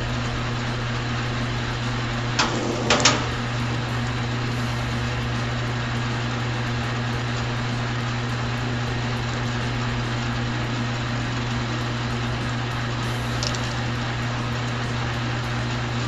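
Bluerock Stripinator Model 945 wire stripping machine running steadily, its 3 HP single-phase motor driving the belts, gears and cutter rollers with a low, even hum. About two and a half to three seconds in, a few sharp clacks stand out above the hum.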